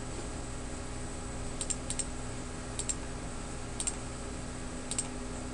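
Computer mouse button clicked about five times, each a quick double click of press and release, over a steady low electrical hum and hiss.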